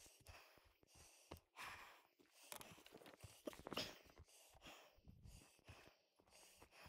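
Faint footsteps and rustling on a forest floor of needles and twigs, irregular scuffs and small clicks, with a louder scuff about three and a half seconds in.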